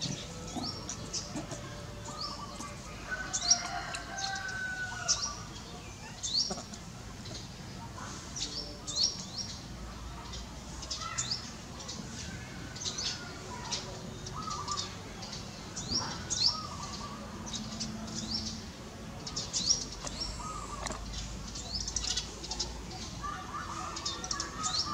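Small birds chirping on and off, short sharp high chirps several times a second, with a few lower calls in between.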